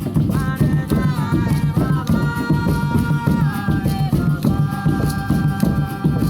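Ritual-style music: a melody of long held notes that slides down in pitch twice and climbs back up about two thirds of the way through, over a steady, pulsing low beat and a dense layer of shaken or clicking percussion.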